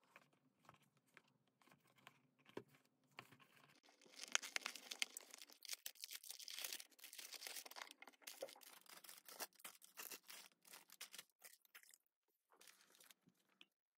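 Cardboard box flaps being opened, then plastic bags of building-block parts crinkling and rustling as they are pulled out and set down, with small clicks of loose bricks inside. Handling is faint at first, the crinkling is densest from about four seconds in, and it tails off near the end.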